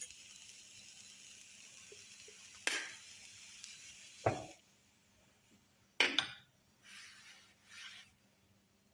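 Kitchen utensils and dishes knocking and clinking several times, including a quick double knock past the middle, over a steady hiss that stops about halfway through; two short soft rustles near the end.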